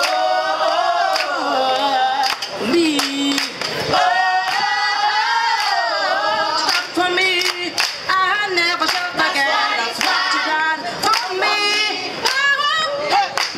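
A cappella choir singing, led by a woman's voice on a microphone, with hands clapping on the beat.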